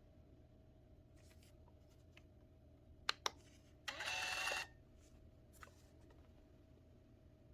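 Two sharp clicks, then a Phomemo D30 thermal label printer's feed motor whirring for under a second as it prints and feeds out a label.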